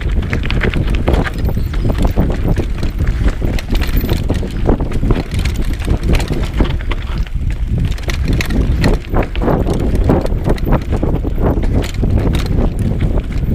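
Mountain bike riding fast down a rough dirt forest trail: wind buffeting the microphone over a steady low rumble of tyres on dirt, with frequent rattles and knocks as the bike bounces over bumps.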